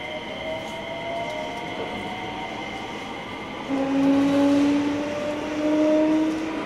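Running sound of a JR West 321 series electric train with a Hitachi IGBT VVVF inverter: steady high inverter tones and traction-motor hums slowly rising in pitch over rail noise. A little over three seconds in, a louder low hum sets in and climbs slightly.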